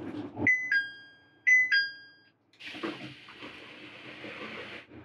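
Train door chime: a falling two-note electronic chime sounds twice about a second apart, then the carriage door opens with a steady hiss of air lasting about two seconds.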